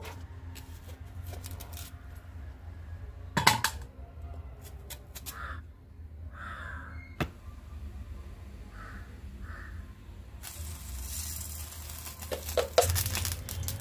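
A few sharp clicks of a knife cutting through a red onion held in the hand over a steel bowl, over a steady low hum. From about ten seconds in a hiss comes up, with a quick cluster of clicks and taps near the end.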